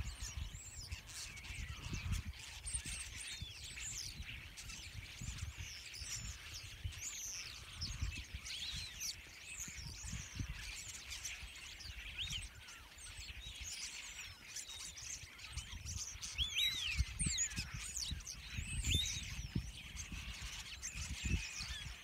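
A large flock of common starlings perched together, chattering in a dense, continuous chorus of many overlapping whistles, squeaks and sliding rising and falling notes. A low rumble runs underneath.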